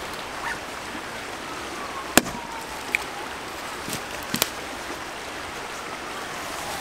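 Steady rushing of a nearby stream, broken by a few sharp wooden knocks as a short log is picked up and stood upright on a fallen trunk for splitting, the strongest about two seconds in and a pair a little past the middle.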